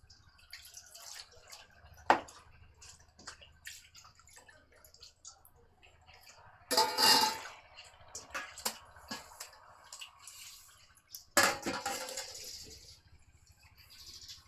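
Kitchen handling sounds: scattered clinks and knocks of containers and utensils, with two short rushes of water, about seven and eleven and a half seconds in.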